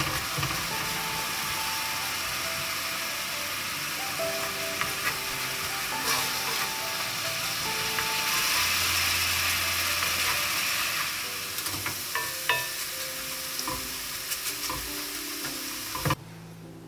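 Diced apples sizzling in bubbling syrup in a cast-iron skillet while a wooden spoon stirs them, with small scraping clicks of the spoon against the pan; the sizzling cuts off suddenly near the end.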